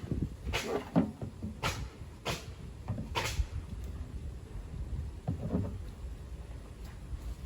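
Handling noise: several sharp light knocks and clatters in the first few seconds as objects are picked up and put down, with a softer scrape about five seconds in over low rumbling.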